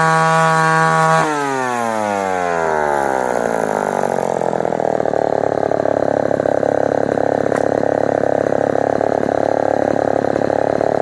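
Homelite Super Wiz 55 two-stroke chainsaw running at high revs; about a second in the throttle is released and the engine winds down over a few seconds to a steady idle.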